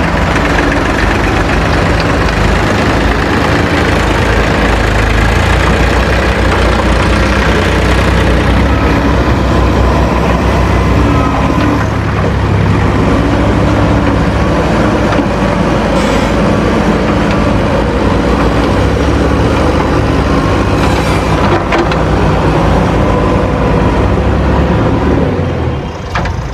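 Heavy diesel engines of a JCB backhoe loader and a tractor running at a work site, the engine note shifting up and down as the machines work. There are a few brief clanks, and the sound drops a little near the end.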